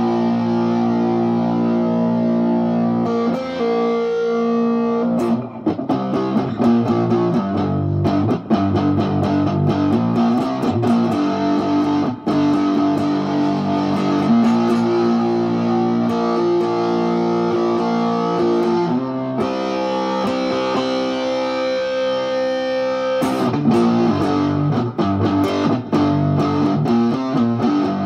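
Electric cigar box guitar played through an amplifier, lying flat: held, ringing notes alternating with runs of quickly picked notes.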